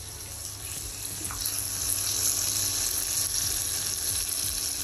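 Masala-marinated pomfret shallow-frying in hot oil in a frying pan, a steady sizzle that grows louder about a second in.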